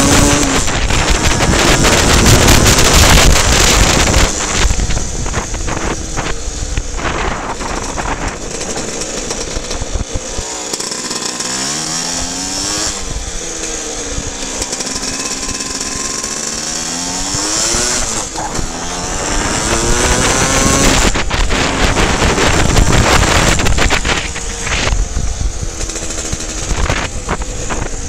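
Vespa scooter engine revving up and down as it is ridden over rough grass, its pitch climbing and falling with the throttle. Knocks and rattles from the bumpy ground and wind on the microphone run through it.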